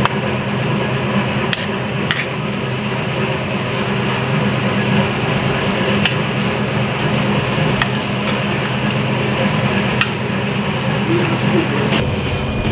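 A utensil stirring ackee and saltfish in a metal pan, over a steady low kitchen hum. A few sharp clicks of the utensil against the pan are scattered through the stirring.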